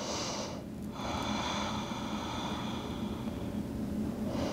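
A woman breathing slowly and audibly: a short breath at the start, a long breath of about three seconds, and another beginning near the end.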